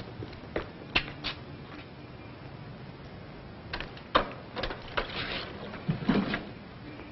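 Several short knocks and scuffs at irregular intervals, the sharpest a little past four seconds in, over the steady hiss of an old film soundtrack.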